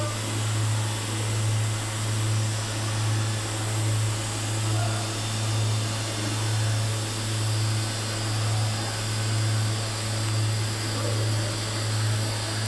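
Automatic orbital pipe-welding machine running a weld pass around a pipe joint: a steady low hum that swells and fades about every second and a quarter, over an even fan-like hiss.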